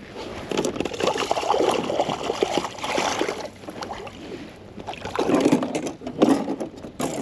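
Water splashing and sloshing against the side of a plastic kayak as a porgy on a coiled leash is dipped in the water alongside. It comes in two spells, each a couple of seconds long, with small knocks of handling.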